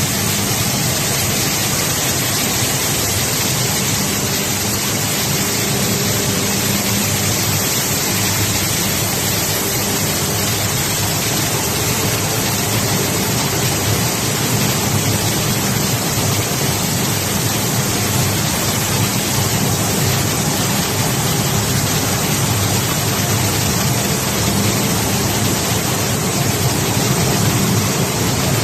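Maize flour milling machinery running: a loud, steady, even roar with a low hum underneath that does not change.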